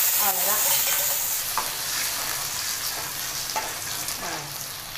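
Hot tempering oil with mustard seeds, dried red chillies and curry leaves sizzling in an aluminium kadai as curd is poured in and stirred with a ladle. The sizzle fades gradually.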